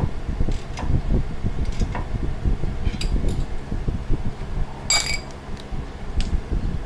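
Steady hum of a cooling fan, with metal hand tools clicking and clinking against each other and the suspension parts; one sharper ringing metal clink about five seconds in.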